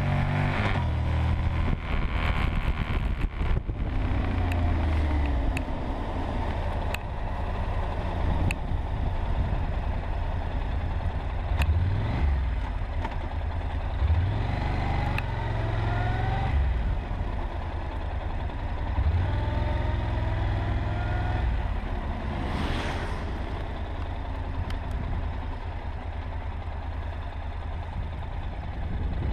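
Honda NC700X's 670 cc parallel-twin engine heard from on top of the fuel tank while riding, its pitch climbing and dropping back several times as it pulls through the gears, under heavy wind rumble.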